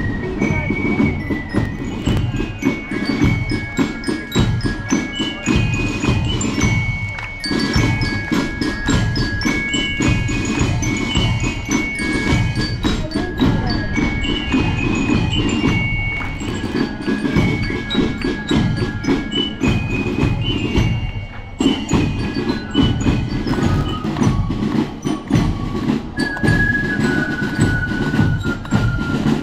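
Marching band playing: bell lyres (glockenspiel) carry a melody of held, bell-like notes over steady snare and bass drumming.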